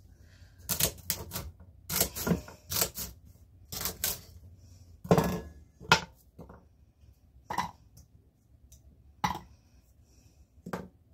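Kitchen knife cutting celery stalks on a wooden cutting board: a quick run of sharp chops in the first four seconds, then scattered single knocks and clicks.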